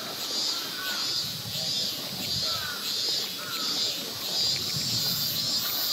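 Summer forest ambience: a chorus of cicadas pulsing at a high pitch about twice a second, with birds calling over it.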